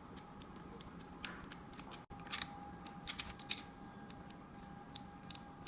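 Scattered light clicks and taps of small parts being handled and fastened as the trolley's handle and fittings are screwed on, over a faint steady hum. Most of the clicks come in a cluster in the middle.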